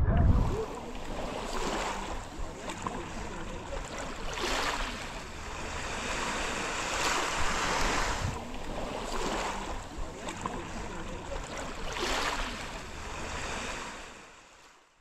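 Small waves washing onto a sandy beach, with a surge every few seconds; the sound fades out near the end.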